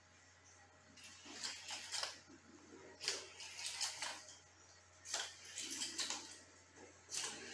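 Sphero Mini robot ball's small drive motors whirring as it rolls across a tiled floor, in four runs of about a second each with quiet pauses between: the programmed sequence of one-second rolls, each followed by a one-second wait, tracing a square.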